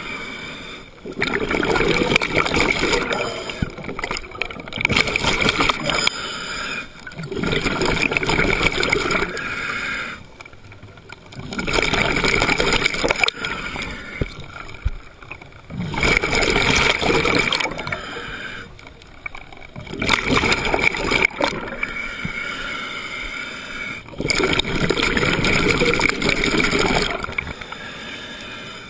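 Scuba diver breathing through a regulator underwater, in cycles about every three to four seconds: a hiss of air alternating with a gurgling rush of exhaled bubbles.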